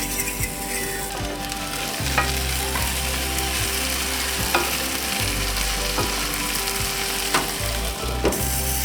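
Food sizzling as it fries in a pan on a wood cook stove, with a few sharp clicks of a utensil against the pan.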